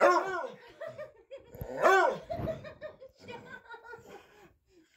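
Laughter in short bursts, with a loud rising-and-falling vocal sound about two seconds in, then quieter broken bursts.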